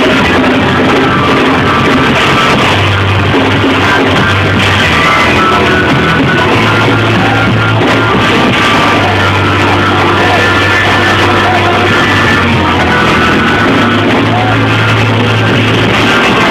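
Loud live band music with long held bass notes that change every few seconds, played through a church sound system.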